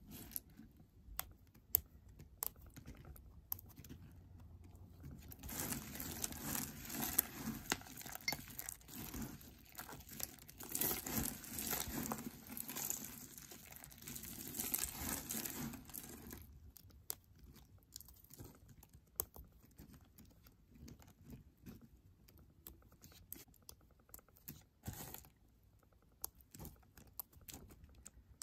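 Hands crushing and crumbling a pile of dry, brittle soap flakes, giving crisp crackling and crunching. The crunching turns dense and continuous from about five seconds in until about sixteen seconds, then thins out to scattered crackles.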